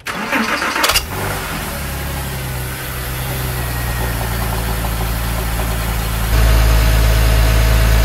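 Porsche 997 flat-six cranked by the starter, catching about a second in and settling into a steady idle: the test start after a coolant hose connector repair. The idle is louder from about six seconds in.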